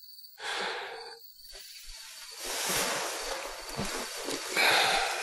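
Bedding and clothes rustling as someone sits up in bed, in several soft swishes: a short one near the start, then a longer stretch that is loudest near the end.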